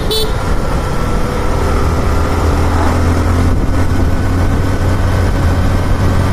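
Motorcycle engine running steadily at cruising speed, heard from the rider's seat, with a continuous low hum under an even rush of noise.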